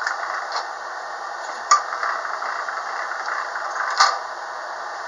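Hand-cranked stainless-steel pasta roller being turned as a sheet of egg-pasta dough feeds through its rollers: a steady rattle from the crank and gears, with a sharp metallic click about one and a half seconds in and a louder one near four seconds.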